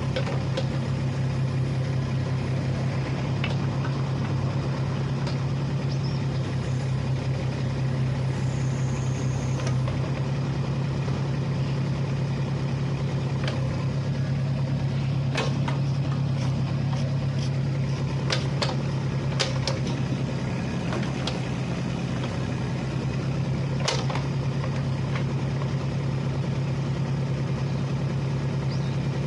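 Kubota RX-203S compact excavator's diesel engine running at a steady speed while the boom, arm and bucket are worked hydraulically, with a few sharp clicks from the machine scattered through it.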